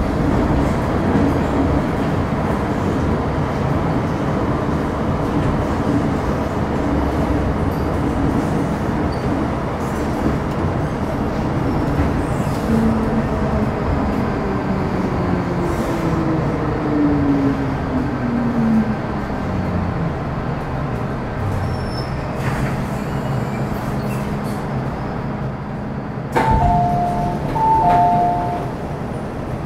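MTR Metro Cammell M-Train (CT-Stock) running on the Island Line, with steady wheel and running noise. From about twelve seconds in, the whine of its GEC GTO chopper and traction motors falls steadily in pitch as the train slows. Near the end a two-note electronic chime sounds twice.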